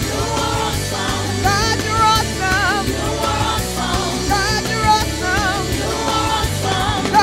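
Female gospel vocal trio singing in harmony, held notes that waver and bend in runs, over instrumental accompaniment with a steady bass line.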